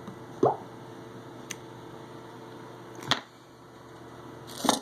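Small screwdriver and phone parts clicking and tapping while someone tries to undo an iPhone 7's tiny internal screws. There are four separate sharp clicks: a loud one about half a second in, a faint one, a sharp one past the middle and a louder knock near the end, over a steady low hum.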